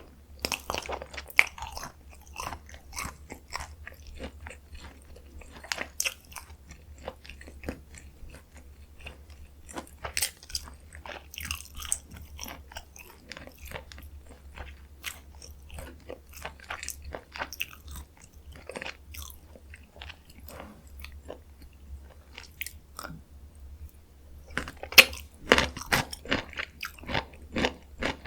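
Close-miked chewing and biting of spicy stir-fried chicken (dakgalbi): irregular wet mouth clicks and bites, growing louder with a run of sharper bites near the end.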